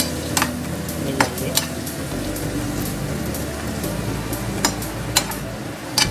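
Sliced onions and green capsicum sizzling in a non-stick frying pan while being stirred and tossed with a steel spatula. The spatula clicks sharply against the pan several times.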